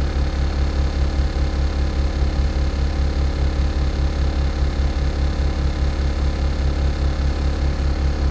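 Optare Solo SR single-deck bus's diesel engine running steadily, heard from inside the passenger cabin: a low drone with an even throb, with no revving or change in pitch.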